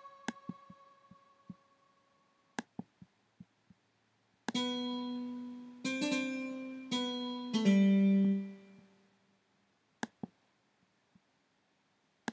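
Korg M1 Le software synthesizer playing its 'Piano 16'' preset: a short phrase of about six notes, each struck and then dying away, the last one lower and the loudest. Several sharp clicks come before the phrase and one after it.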